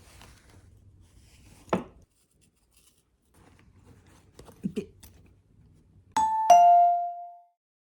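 A two-note ding-dong chime, a higher note then a lower one, each ringing out for about a second, near the end. Before it come a single soft knock and a few faint handling sounds.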